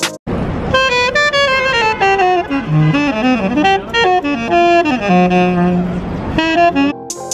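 A street saxophonist playing a solo melody, a run of changing notes that ends in a long held low note.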